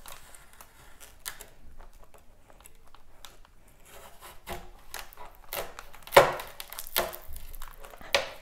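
Kitchen knife prying and cutting into a candied apple's hard candy shell, which cracks and snaps in a series of irregular scrapes and sharp cracks. The loudest cracks come about two-thirds of the way through.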